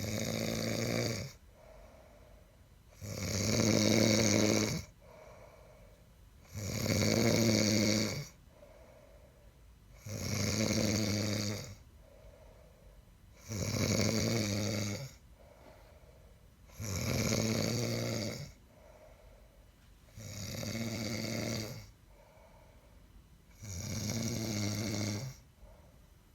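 Snoring in a steady rhythm: eight loud snores of one to two seconds each, about every three and a half seconds, with a fainter breath between them.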